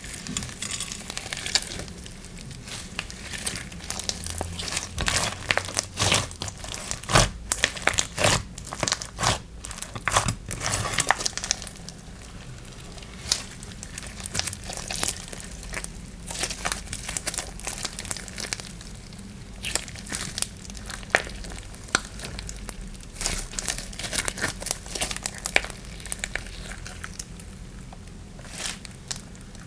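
Slime being squeezed, poked and stretched by hand, crackling with many sharp pops and clicks. The pops come thickest in the first half and thin out later.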